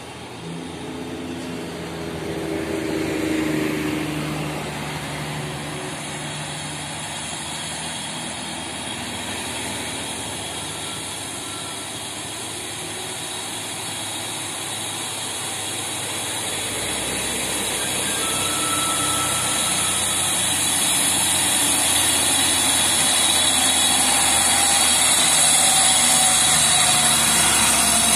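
A motorcycle passes about three seconds in. Then a heavily loaded tandem-axle diesel truck crawls up a steep climb, its engine running steadily and growing louder as it comes close and passes.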